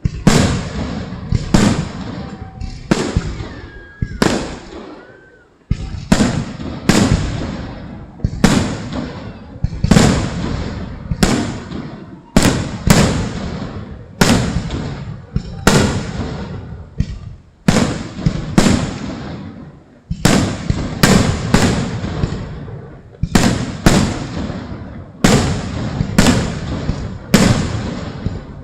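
Aerial fireworks shells bursting in rapid succession, roughly one bang a second, each dying away over about a second before the next. There are short pauses about five seconds in and about twenty seconds in.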